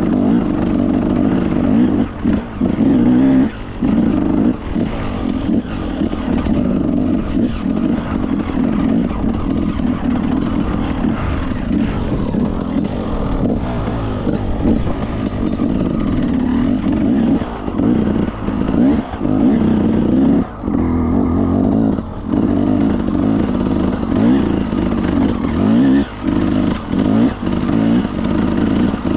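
Enduro motorcycle engine running continuously under changing throttle, dipping briefly again and again as the throttle is eased off and opened again, with scattered clatter.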